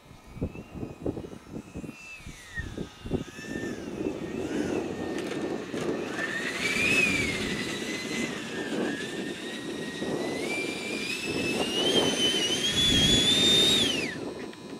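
Small Jet100 model jet turbine on a Swift glider whining with a rushing exhaust noise; its pitch wavers, then from about halfway climbs in steps to a high whine and falls away sharply near the end.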